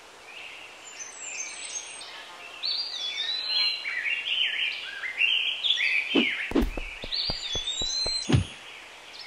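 Birds chirping and twittering over a steady outdoor hiss, with many short up-and-down chirps. In the second half comes a quick run of low thumps, the loudest just over eight seconds in.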